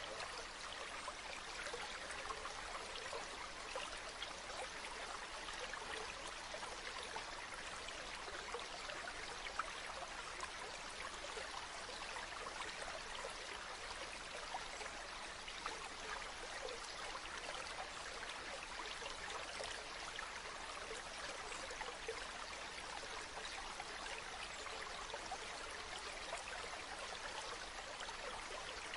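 River water flowing over stones, a steady babbling and trickling with many small splashes.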